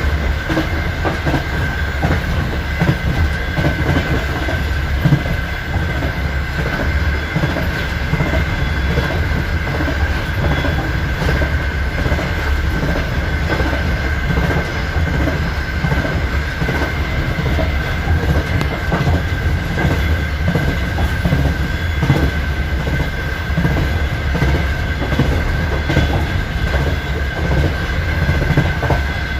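Wheels of a night express passenger train running at speed: a steady rumble with repeated clicks of wheels over the rail joints, and a steady high-pitched whine throughout.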